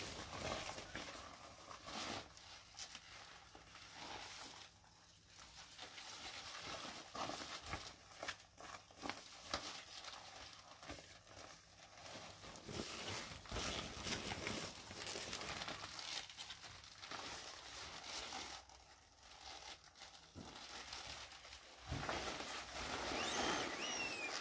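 Deflated plastic inflatable bunny toys crumpling and crinkling as they are bundled up and handled, in irregular rustling bursts, with a few short squeaks near the end.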